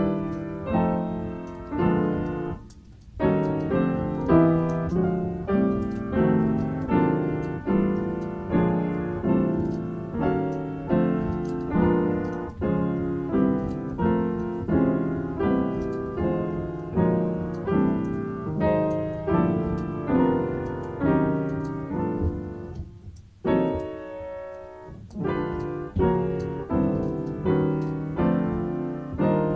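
Solo piano improvising, chords and melody struck on a steady pulse of about one attack a second, each note decaying before the next. The playing lulls briefly about three seconds in and again around twenty-three seconds in.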